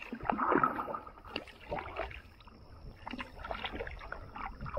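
Kayak paddle strokes: irregular splashing and dripping of river water, loudest in the first second.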